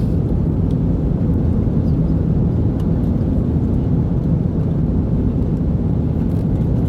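Steady low rumble of an airliner cabin in flight: engine and airflow noise with no change in level.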